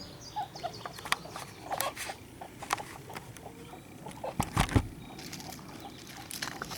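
Dead apple twig being pried and split open by hand: a string of small cracks, clicks and scratches, with a couple of louder knocks about four and a half seconds in.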